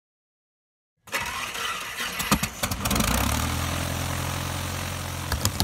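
Light-aircraft piston engine starting: about a second in there is an uneven cranking sound with a few sharp clicks, then around three seconds in the engine catches and settles into a steady low idle.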